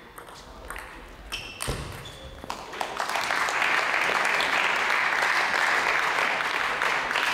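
Table tennis rally: a few sharp clicks of the celluloid ball on bats and table, with short shoe squeaks on the hall floor. About three seconds in, spectators break into steady applause that lasts to the end.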